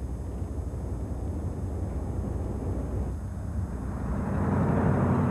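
Low, steady road rumble of a moving car heard from inside the cabin; about four seconds in it gives way to the louder, fuller sound of the car driving along the road, engine and tyres.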